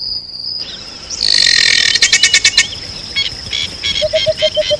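Birds calling at daybreak in the African bush. A harsh, noisy call comes about a second in, followed by quick repeated chirps, and a repeated low hooting note starts near the end. A steady high insect trill fades out early on.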